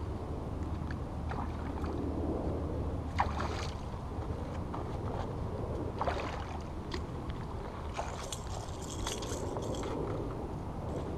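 Hooked largemouth bass splashing and thrashing at the water's surface as it is pulled to the bank and grabbed by hand. There are sharp splashes about 3 and 6 seconds in, and a longer spell of splashing near the end.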